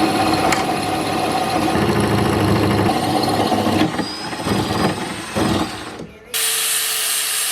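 Power tools working metal tubing: a loud, steady tool running for several seconds. After a brief break near the end, a different steady tool sound with a held whine and hiss starts.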